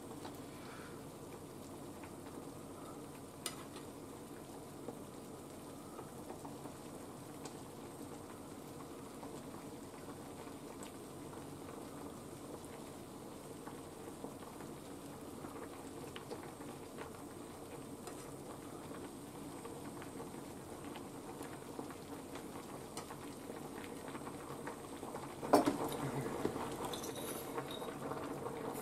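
A saucepan of soup simmering with a steady low bubbling, with a few faint clicks of a metal spoon. About 25 seconds in, a sharp clink of a spoon against a glass jar.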